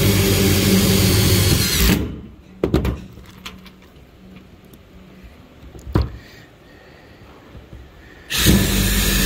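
Ryobi ONE+ HP brushless cordless driver running for about two seconds as it drives a roofing screw through steel rib-panel sheeting into the purlin. A few light clicks follow as the next screw is taken from its plastic bag, and a second screw is driven near the end.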